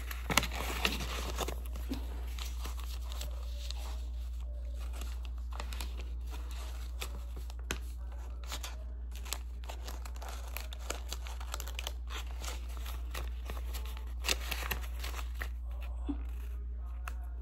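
Folded paper rustling and crinkling as it is handled, with many small scattered crackles, over a steady low hum.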